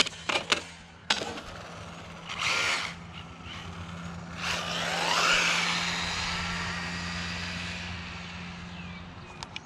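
A few sharp knocks in the first second. Then an RC truck's electric motor whines, rising in pitch as it speeds up about four and a half seconds in, and slowly fades away.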